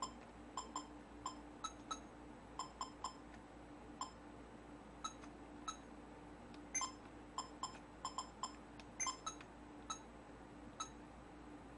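Irregular small plastic clicks from the menu buttons and dial of a Sony CCD-TRV328 Hi8 camcorder being pressed and turned, each click short and a little tinny, about two dozen in all, over a faint steady hum.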